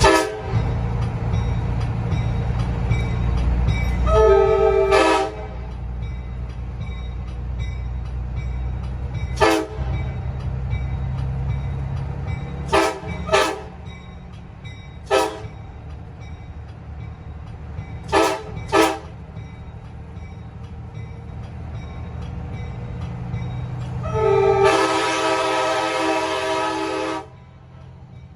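Nathan AirChime K5LA five-chime train horn (mid-1980s, small-bore 5 bell) blown on about 95 psi of air, sounding its chord in a string of blasts. There is a short blast, then one of about a second, then a run of short toots, some in quick pairs, and finally a long blast of about three seconds. It is heard from inside the vehicle carrying it, with echoes off nearby objects, over a low rumble that fades shortly before the last blast ends.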